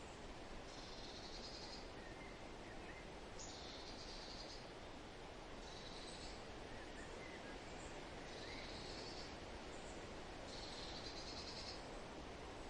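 Forest ambience: a steady hiss of wind rustling, over which a bird repeats a short, high, trilled song phrase five times, about every two to three seconds, with fainter chirps from another bird in between.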